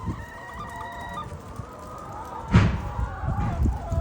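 Chickens in a pen clucking and calling in short pitched notes, with a short loud burst of noise about two and a half seconds in.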